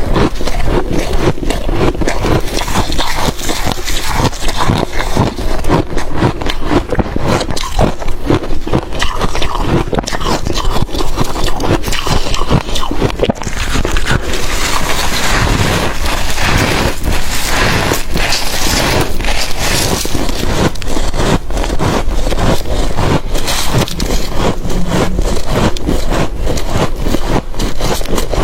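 Mouthfuls of freezer frost being crunched and chewed: a dense, continuous crackling crunch.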